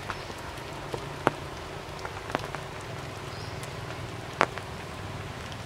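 Steady rainfall, with single heavier drops landing with sharp ticks every second or so.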